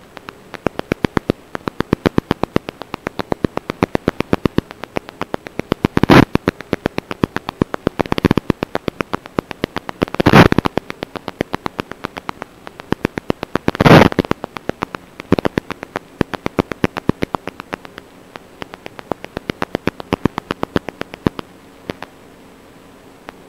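Crackling radio static on an analog FPV video link's audio: a rapid run of sharp clicks, several a second, over a steady hiss, with louder bursts of hiss about six, eight, ten and fourteen seconds in.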